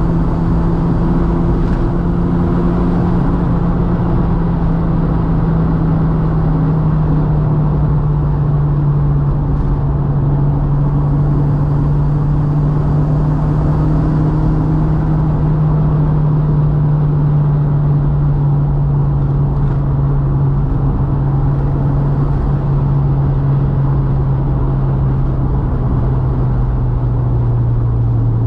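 Volkswagen Mk2's 1.8T turbo four-cylinder engine pulling steadily on the road, its pitch sinking slowly as the revs ease off, over constant tyre and road noise.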